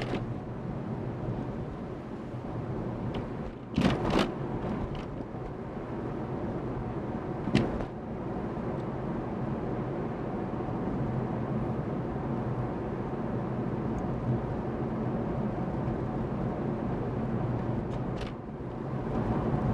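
Steady car engine and road noise heard from inside the cabin while driving, with a few brief knocks about 4, 7.5 and 18 seconds in.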